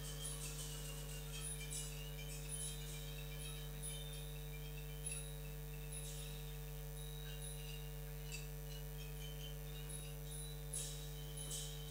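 Steady low electrical hum, with faint scattered clicks and rustles on top.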